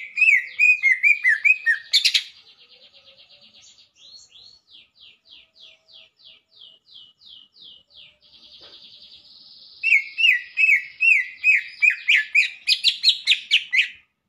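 Male greater green leafbird (cucak ijo) singing: loud runs of quick repeated whistled notes, then a softer stretch of rapid down-slurred notes, then another loud run near the end.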